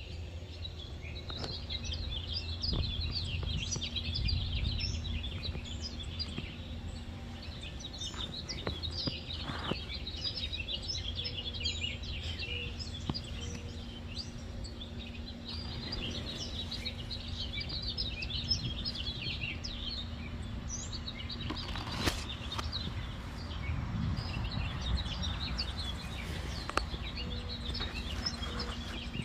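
Outdoor garden ambience: birds chirping in many short, high calls, over a low rumble.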